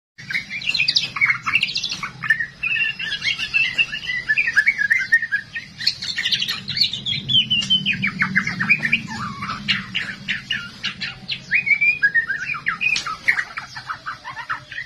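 Juvenile male white-rumped shama calling without a pause: a rapid, varied run of short chirps and sliding whistles, over a steady low hum.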